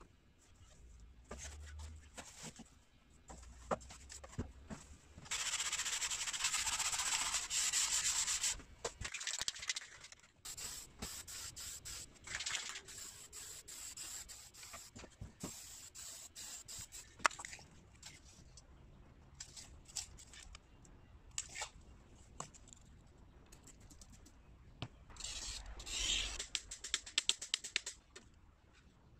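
Aerosol spray can hissing for about five seconds, then scattered clicks and light knocks of handling. Near the end comes a few seconds of scratchy rubbing.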